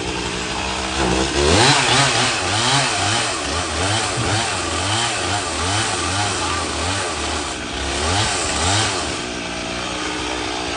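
An engine idling, then revving up and down over and over, a little under twice a second, from about a second in until near the end.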